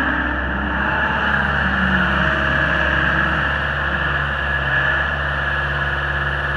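John Deere 323E skid steer's diesel engine running steadily. Its pitch wavers in the first two seconds, then settles into an even hum.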